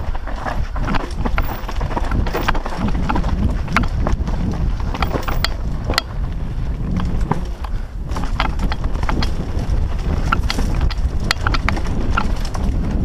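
Mountain bike descending a rough dirt singletrack, heard from a helmet camera: a steady low rumble of wind and tyres on the trail, with frequent irregular clicks and rattles as the bike jolts over roots and bumps.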